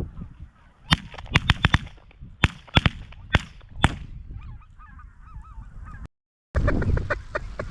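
A flock of geese calling, with a rapid series of about ten sharp cracks in the first few seconds, then high wavering goose calls over wind noise.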